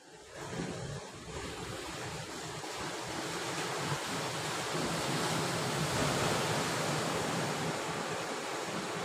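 Sea surf washing and breaking against shore rocks, a steady rush that builds and is loudest about two-thirds of the way through.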